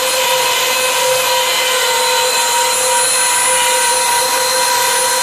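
Wood-carving CNC router spindle running with a steady high whine and a hiss of cutting wood.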